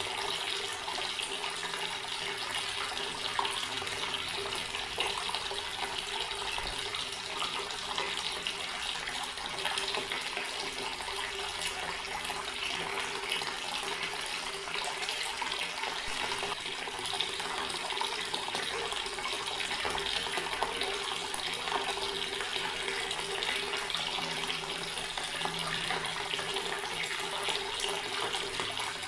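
Garden water tap left running: a steady, unbroken stream of water.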